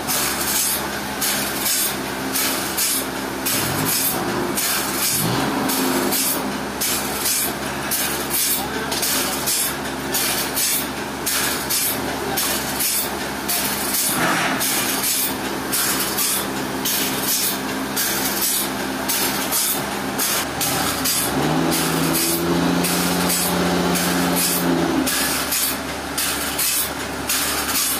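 Sawmill machinery running steadily: a motor's hum under continuous noise with fast, regular ticks. A stronger, higher hum sets in for about three seconds near the end.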